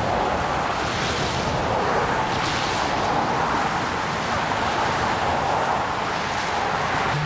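Steady rushing noise of highway traffic going by, mixed with wind, swelling slightly a few times.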